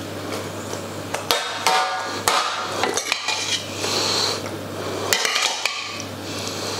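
A metal utensil clinking and scraping against a steel pot as sauce-coated pasta shells are broken up and separated, with several sharp knocks, one ringing briefly.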